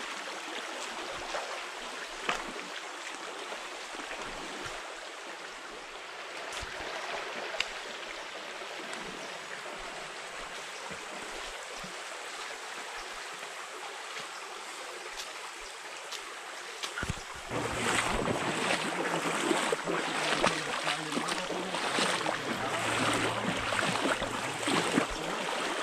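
Shallow, stony forest creek running, with the splashing of people wading through the water. About two-thirds of the way in the water sound gets louder and busier.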